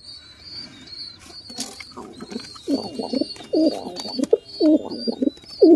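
Domestic pigeons cooing, a run of rhythmic low coos starting about two seconds in and repeating several times.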